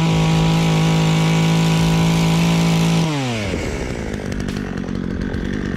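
Hyundai HYC6220 two-stroke petrol chainsaw running steadily at high revs; about three seconds in the revs drop and it runs on at a lower, rougher pitch.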